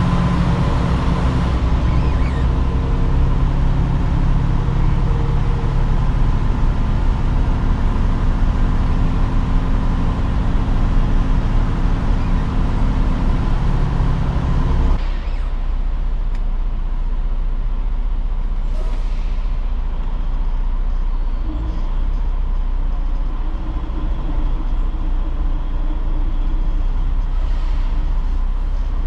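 A truck engine running with a steady drone. About halfway through, the sound changes abruptly to a quieter, steadier vehicle hum.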